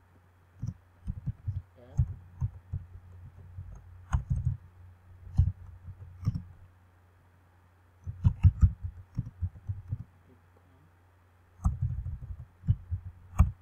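Typing on a computer keyboard in short flurries of keystrokes with pauses between, over a steady low hum.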